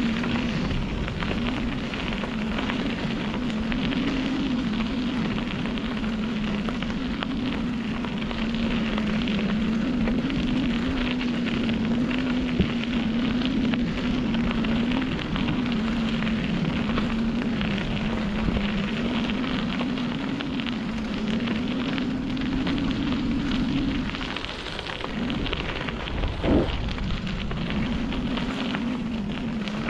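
Bicycle rolling along a dirt trail: steady rushing tyre and wind noise on the camera microphone, with a low hum that wavers slightly in pitch and drops away briefly near the end.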